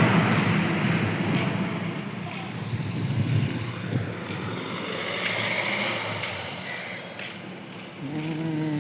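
Steady roadside traffic noise, loudest at the start and slowly fading, with a short pitched tone, like a horn or a voice, near the end.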